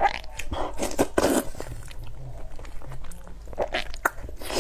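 A person slurping spicy noodles in several short, noisy bursts, the strongest about a second in and again at the very end, with chewing between the slurps.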